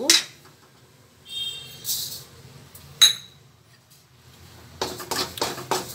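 Metal clinks against an empty steel kadai as cumin seeds are put in for dry roasting. A short ringing clink comes about a second and a half in, a sharp ringing clink about three seconds in, and a run of quick taps and scrapes near the end.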